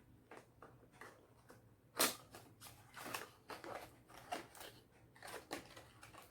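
Skincare product packaging being handled and opened by hand: irregular small clicks and rustles, with one sharper snap about two seconds in.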